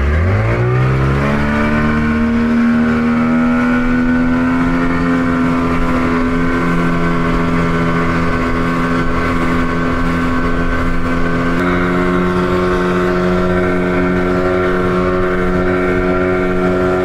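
A 15 hp outboard motor on an inflatable dinghy is opened up to full throttle. It revs up steeply over the first two seconds or so, then holds a steady high-revving run at planing speed, with a slight shift in pitch about twelve seconds in.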